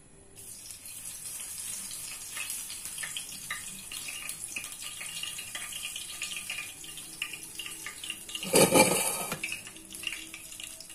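Hot oil sizzling and crackling in a small frying pan as onion pakodi batter fries. About eight and a half seconds in, the sizzle surges loudly for about a second as a handful of batter goes into the oil.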